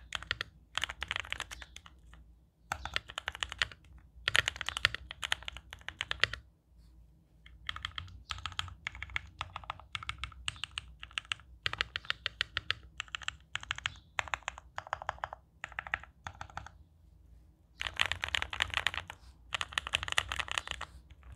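Typing on a Constellation mechanical keyboard with Konpeitou switches and two layers of case foam, a deep, poppy sound. Fast bursts of typing in the first six seconds, then slower single keystrokes for about ten seconds, then fast typing again near the end.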